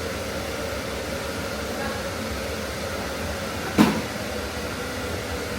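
A steady whooshing noise with a low hum, and one sharp knock about four seconds in.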